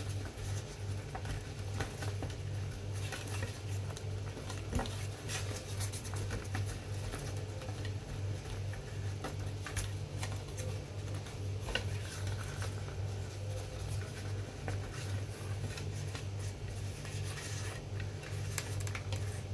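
Banana leaves crinkling and rustling in short, soft scrapes and taps as they are folded around a sticky cassava filling, over a steady low hum that runs throughout.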